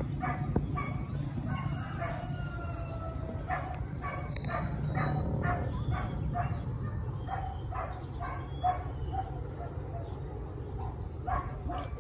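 Outdoor ambience of dogs barking repeatedly in the distance and birds chirping, over a steady low rumble and a steady high-pitched drone.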